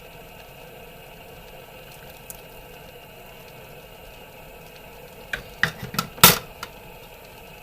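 A ladle clinking and scraping against a soup pot and bowl while broth is dished out: a quick run of clinks about five seconds in, the loudest just after six seconds, over a steady low background noise.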